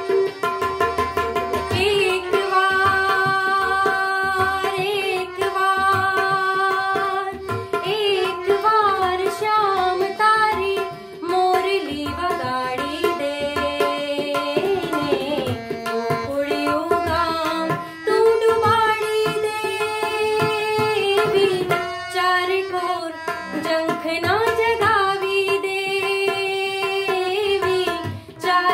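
A woman singing a Gujarati sugam sangeet (light classical) song, with tabla keeping rhythm beneath her and a steady drone held on the tonic.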